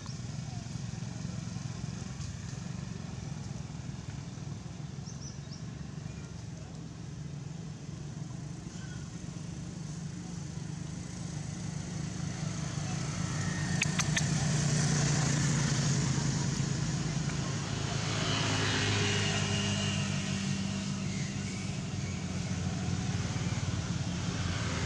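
Motor vehicle engine running with a steady low hum, growing louder about halfway through as it draws near, with a couple of sharp clicks around the same time.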